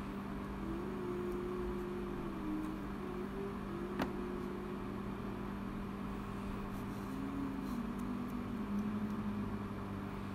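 Overhead projector's cooling fan running with a steady hum, with a faint wavering higher tone over it. A single sharp click comes about four seconds in.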